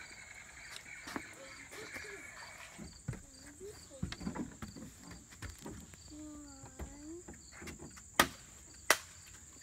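A steady, high-pitched chorus of summer insects. A child's voice is heard faintly in the middle, and two sharp knocks a little over a second apart near the end are the loudest sounds.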